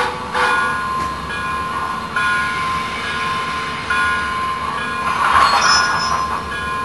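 The Proto-Sound 3.0 sound system of an MTH HO-scale Erie Triplex steam locomotive model playing its locomotive bell, struck about every two seconds, with a burst of steam hiss about five seconds in.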